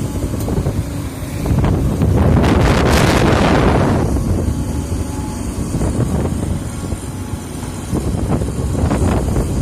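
Excavator engine running with a steady low rumble, with a loud rushing burst of noise from about two to four seconds in and a few sharp knocks near the end.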